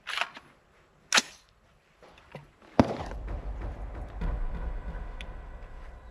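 Sharp metallic clacks, three in all and the last the loudest, from an AR-15 rifle's action being worked as it is made ready again after a failure to feed. A steady low rumble follows to the end.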